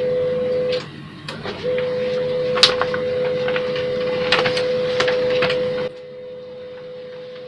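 Canon LBP 2900 laser printer running a print job: a steady mechanical hum with scattered clicks, briefly dipping about a second in and dropping to a quieter hum about six seconds in. It prints without the squeak it had before the repair.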